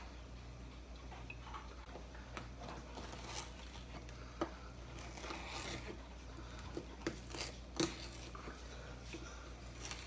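Faint scattered taps, clicks and wet squishing as a fish is cut and handled with a knife, over a steady low hum.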